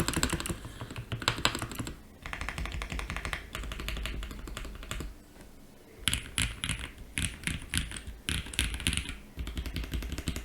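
Typing on an ai03 Vega mechanical keyboard with stock SP-Star Ayara linear switches, a polycarbonate plate, plate and case foam, and GMK keycaps. Fast runs of keystrokes are broken by short pauses, and the strokes come in more separated, louder clusters in the second half.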